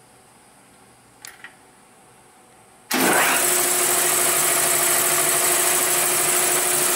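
Eaton 10 hp single-phase piston air compressor, housed in its sound-baffle box, kicking on abruptly about three seconds in and then running steadily as it begins filling its 80-gallon tank from empty. Before it starts there are two light clicks.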